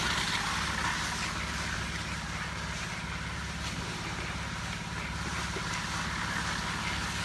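An engine running steadily throughout, with a hiss of noise above its low drone.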